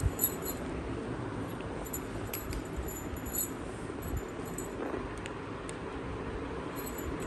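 A few brief, light metallic jingles over a steady background hiss, with a couple of soft knocks.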